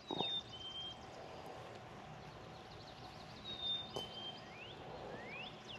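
Wild birds calling: a string of short rising chirps and high whistled notes, with a sharp click about four seconds in.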